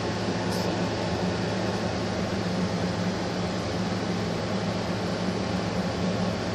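A steady low hum under an even hiss, the sound of a running fan or similar room machinery.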